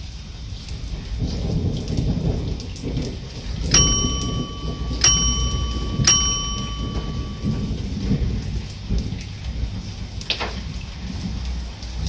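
Steady rain with low rumbling thunder. About four seconds in, three loud bell-like dings ring out roughly a second apart, a subscribe-button notification sound effect, and a short falling swoosh comes near the end.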